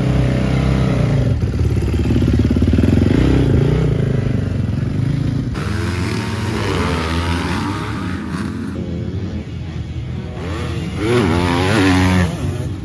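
Motocross dirt bike engines, a blue Yamaha among them, running and revving, with the pitch climbing and falling repeatedly. The revving is strongest near the end as a bike is ridden hard around the track. The sound changes abruptly a few times between bursts of engine noise.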